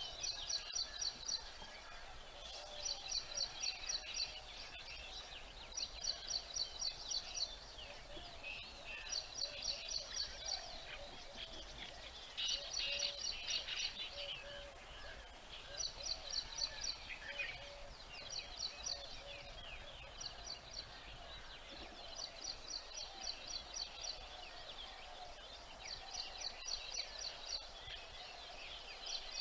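High-pitched chirping trills over a steady outdoor background: rapid pulses, about ten a second, in bursts of one to two seconds that repeat every few seconds.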